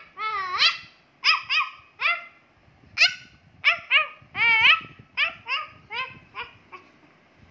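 A dog giving a quick string of about fifteen short, high-pitched yips and barks, some sliding up and down in pitch.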